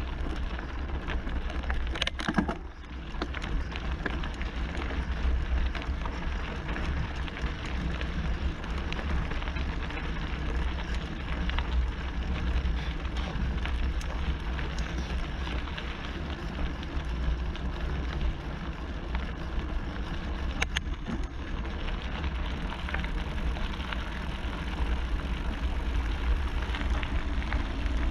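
Mountain bike's knobby tyres rolling fast downhill over a gravel track: a steady crunching hiss with scattered clicks of stones, the loudest about two seconds in, over the low rumble of wind on the bike-mounted camera's microphone.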